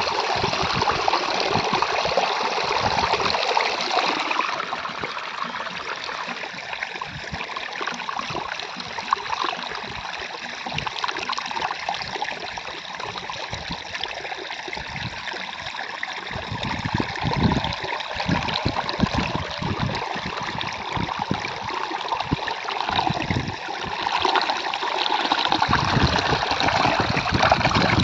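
Water running and trickling steadily, louder in the first few seconds and again near the end, with irregular low knocks through the middle and later part.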